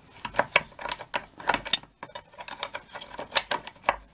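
Ratcheting wrench clicking in quick, uneven runs as it is worked back and forth on a seized nut that has been heated to free it, with a short pause about halfway.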